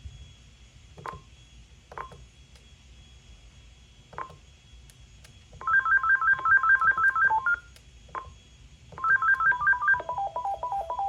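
AT&T E5860 cordless phone beeping: a few single key-press beeps, then two bursts of a fast electronic ringtone melody about two seconds each, the second stepping down through different notes, as the ringtones are played through one after another.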